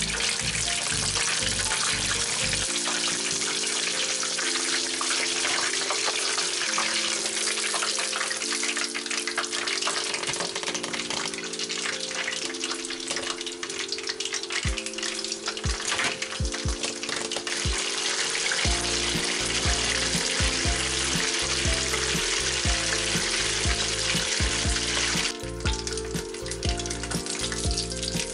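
Battered chicken pieces deep-frying in hot oil, a steady crackling sizzle that grows quieter near the end. Background music plays underneath, and a bass beat comes in about two-thirds of the way through.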